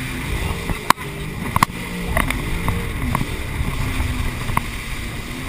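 Sea-Doo personal watercraft engine running under way, its pitch rising and falling several times as the throttle changes, over the wash of water and wind, with a few sharp knocks.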